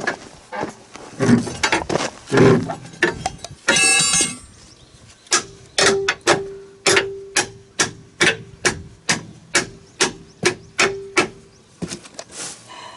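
A few irregular knocks and a brief high squeal, then a hammer striking steel in a steady run of about three blows a second, each blow ringing with the same tone, for around six seconds before it stops.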